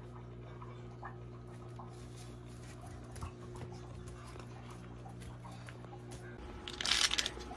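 Faint ticking of a puppy's claws and paws on a tiled floor over a steady low hum. About six and a half seconds in the hum cuts off and loud crinkling of a plastic bottle being handled takes over.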